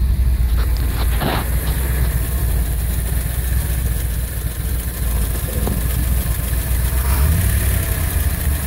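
V8 truck engine running on wood gas, idling steadily with its idle set down a little.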